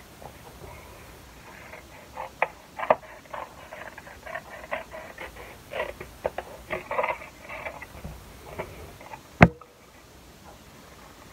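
Small craft scissors snipping through cardstock in short, irregular cuts, with the paper rustling as it is turned. A single sharp click stands out near the end.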